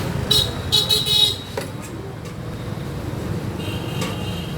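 Street traffic with vehicle horns honking: three short high-pitched toots in quick succession in the first second or so, then another horn of a different pitch near the end, over a steady traffic rumble.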